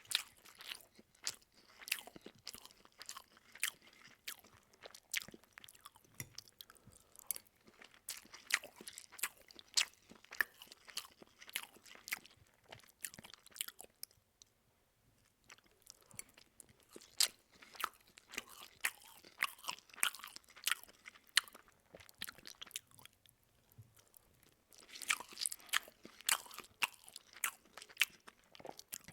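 A person chewing loudly with the mouth open: a rapid run of wet smacks, lip clicks and crunches, several a second, with a short lull about halfway through.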